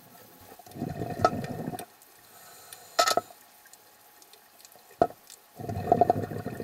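Exhaled air from a scuba regulator bubbling underwater, in two bursts about a second long, near the start and near the end. Two short sharp clicks come between them.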